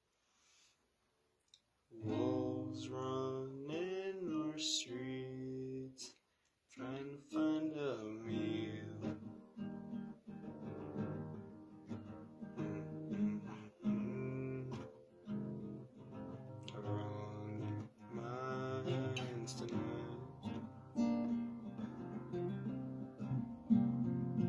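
Cordoba classical nylon-string guitar played in a plucked and strummed accompaniment, starting about two seconds in, with a short break about six seconds in before the playing resumes.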